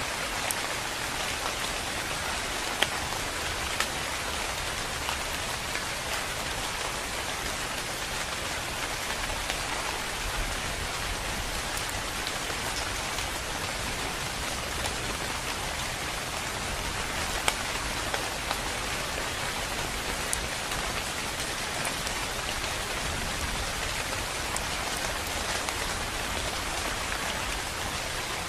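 Steady rain falling on leafy trees and shrubs, an even rushing patter. A few sharper single drop hits stand out now and then.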